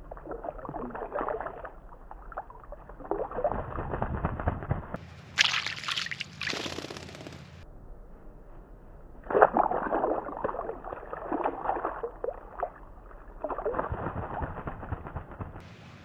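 Water in a birdbath splashing and sloshing in about five bursts of a second or two each, as forest kingfishers dive into it. Most bursts sound dull and muffled; one a third of the way in is brighter and crisper.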